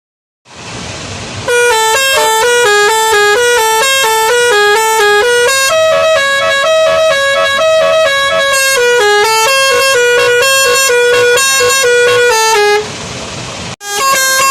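Multi-note musical bus horn playing a quick tune of short stepped notes. A brief rush of noise comes just before it. The tune breaks off about thirteen seconds in and starts again near the end.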